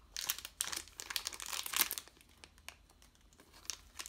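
Foil trading-card booster pack wrapper crinkling and rustling in the hands, loudest in the first two seconds. Quieter handling follows, then the pack begins to be torn open near the end.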